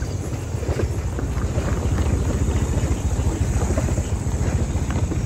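Motorcycle engine running steadily while riding over a rough dirt track, with wind noise on the microphone.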